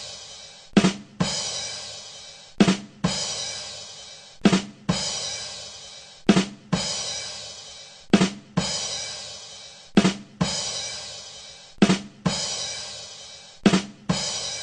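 Drum kit playing the 'ba dum tss' bad-joke rimshot sting over and over, about every two seconds. Each time, two quick drum hits are followed by a cymbal that rings out and fades.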